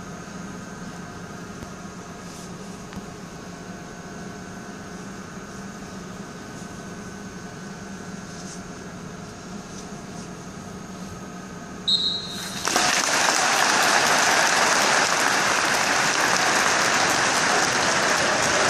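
A packed football stadium's crowd holds a hushed minute's silence over a faint steady hum; about twelve seconds in a short, high referee's whistle ends it and the whole crowd breaks into loud, sustained applause.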